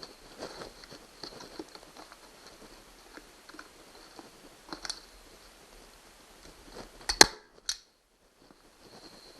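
Small handling rustles and clicks, then a Harbor Freight FastenPro manual 3-way staple gun fires once with a sharp snap about seven seconds in, followed half a second later by a lighter click as the handle springs back. The staple is being driven through vinyl into plywood.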